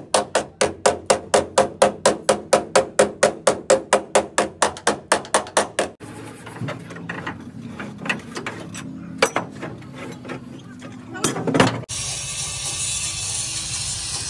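Rapid, even metal strikes on the Toyota Hilux's cab body during straightening, about four a second, each with a short ring. The strikes stop about six seconds in, giving way to scattered knocks, a loud clatter and then a steady hiss.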